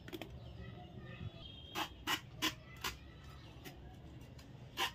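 Young jackfruit being sliced into small pieces against a bonti, the upright kitchen blade: sharp crisp cuts, four in quick succession around the middle and another near the end.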